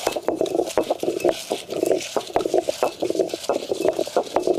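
Heavy grinding stone worked by hand round a stone grinding bowl, crushing grated coconut, roasted red chillies, urad dal and sesame into masala: a continuous rhythmic gritty grinding with small crunching clicks.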